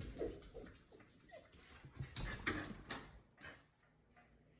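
Keeshond whimpering softly in a few short whines, one rising in pitch, at a cat it has seen outside. A few faint knocks or scuffs follow, then the dog goes quiet.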